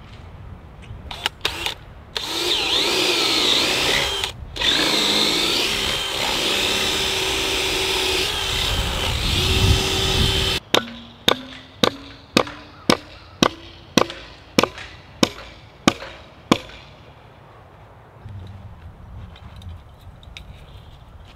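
A power drill runs in a long spell of about eight seconds with a brief pause, its whine wavering in pitch. It is followed by about a dozen sharp, evenly spaced knocks, roughly two a second.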